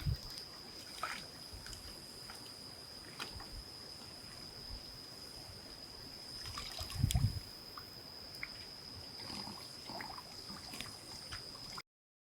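Quiet waterside ambience: faint trickling and small water sounds with scattered light clicks under a steady thin high whine. There is a low thump about seven seconds in, and the sound cuts off abruptly near the end.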